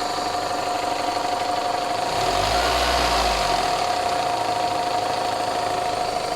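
Toyota 3S-FE 2.0-litre inline-four petrol engine idling with a knocking clatter of unknown cause. The engine sound swells briefly around the middle, then settles back to idle.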